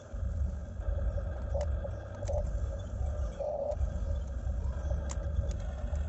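Electric motors and gearboxes of a Huina RC excavator whining in short bursts as the boom and bucket move, with a few sharp clicks, over a steady low rumble.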